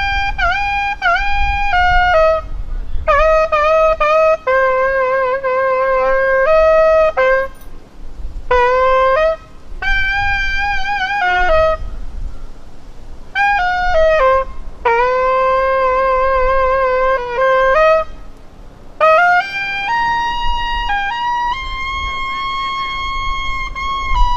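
A solo wind instrument playing a slow melody, one note at a time, in phrases of a few seconds with short pauses between them. Wind rumbles low on the microphone underneath.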